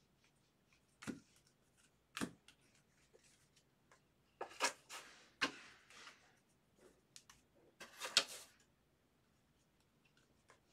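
Trading cards and their packaging being handled by hand: two sharp clicks about one and two seconds in, then short bursts of rustling and sliding in the middle and near the end.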